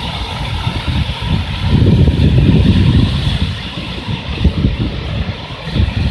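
Typhoon wind gusting hard across the microphone, a low rumbling buffet over a steady rushing hiss. The gusts swell strongly about two seconds in, ease off near the end, then pick up again.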